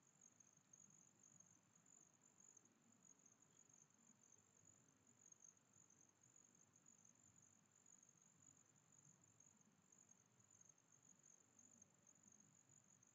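Near silence, with a faint, steady, high-pitched whine over a low hiss.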